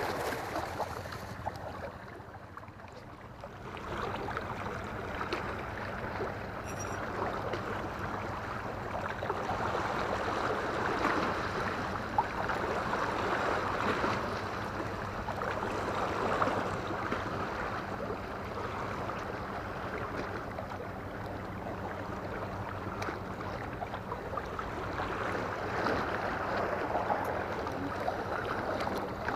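Steady wash of sea water moving and lapping against a concrete seawall, a little quieter for a couple of seconds near the start.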